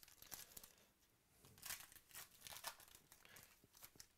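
Foil wrapper of a 2018 Illusions football card pack being torn open and crinkled while the cards are pulled out: a run of soft crackling rustles, loudest in two bursts near the middle.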